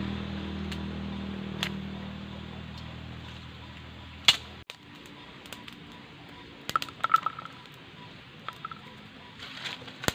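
A low steady hum that slowly fades, with a sharp click a little after four seconds, then scattered light clicks and taps as chillies and shallots are set down on a clay mortar.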